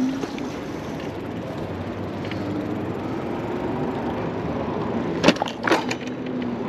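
E-bike rolling over pavement: a steady rolling noise with a faint hum that wavers in pitch, and two sharp knocks or rattles just past five seconds in, as over a bump or crack in the road.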